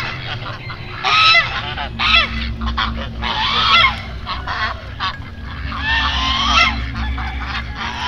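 A flock of white Chinese domestic geese honking, several loud calls in a row with short gaps between them.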